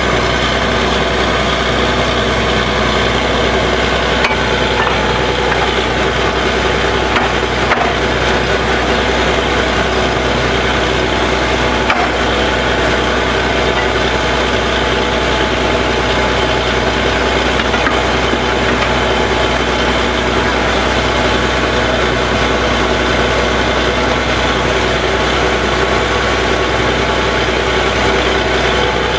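Truck-mounted borewell drilling rig running, a loud, steady engine drone layered with many held pitched lines. A few short sharp knocks stand out, at about 4, 8 and 12 seconds.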